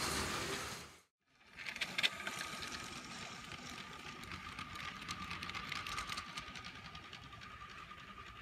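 Lego train running on plastic Lego track. The Power Functions electric motor whines steadily, and the wagons' wheels click and rattle over the track. The sound cuts out briefly about a second in, comes back with a sharp click, and fades gradually near the end.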